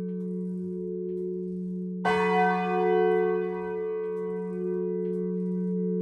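Church bells ringing in the belfry: a single clapper stroke about two seconds in, with its bright overtones dying away over the long, slowly pulsing hum of the bells' earlier strokes.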